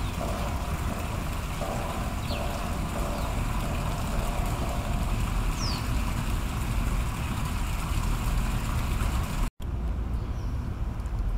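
Steady low outdoor rumble, with a few faint, short, falling high chirps in the first half. The sound drops out for an instant near the end.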